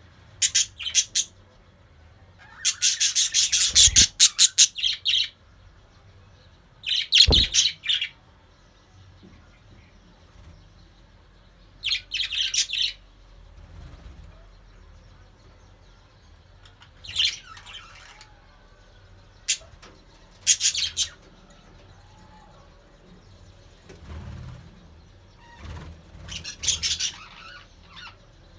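Budgerigars chirping and chattering in short bursts of rapid high chirps, with quieter pauses between them. A low thump comes in two of the bursts.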